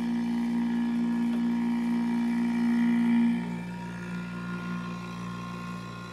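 Vacuum pump of a Neutec J-2R casting machine running with a steady hum of several tones. About three and a half seconds in, its pitch drops and it gets quieter.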